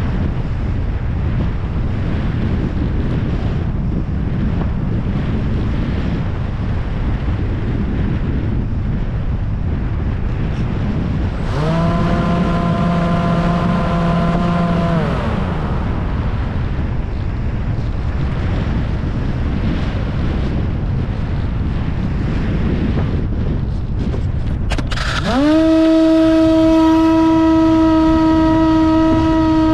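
Wind rushing over the camera on a Bixler 1.1 RC plane, with its electric motor and propeller whining up about twelve seconds in, holding for a few seconds, then winding down. Near the end the motor spools up again to a steady, higher-pitched whine that is louder than the wind.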